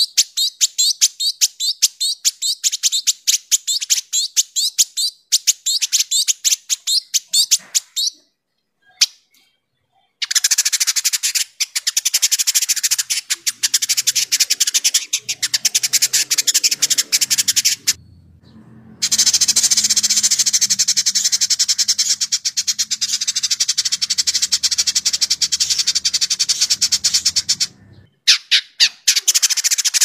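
Village indigobird singing in dense, rapid chattering runs of sharp, high notes. Quick bursts of chatter for about eight seconds, a short pause, then an almost unbroken stream of chatter from about ten seconds in until near the end, with one more brief burst at the close.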